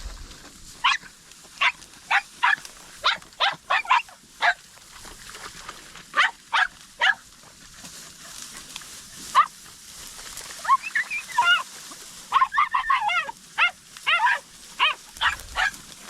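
Podenco hunting hounds barking in short, high yelps. There is a run of about nine in the first few seconds, a few more after a pause, and a faster run of yelps near the end.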